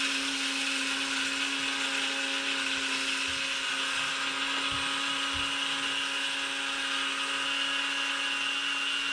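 Black & Decker electric coffee grinder running steadily with a constant motor whine and hiss, grinding whole coffee beans fine.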